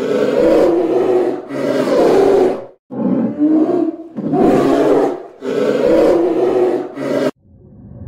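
Polar bear growling in a run of about seven harsh roars, each under a second long and close on one another. They cut off abruptly near the end, and a low steady rumble follows.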